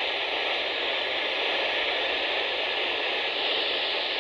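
Steady hiss of radio static from a NOAA Weather Radio receiver, with no alarm tone in it where the weekly test tone was due. The station's signal has dropped out.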